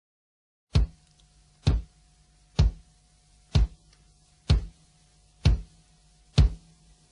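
Seven evenly spaced single drum hits, about one a second, over a faint steady hum, opening a music track.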